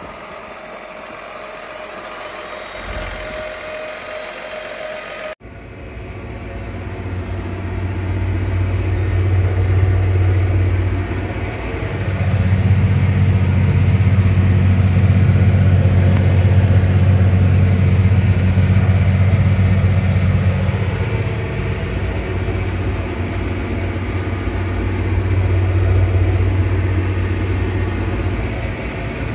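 John Deere 4955 tractor's six-cylinder diesel engine running, its low hum swelling and easing several times with changing load. It opens on a quieter, steady whine that cuts off abruptly about five seconds in.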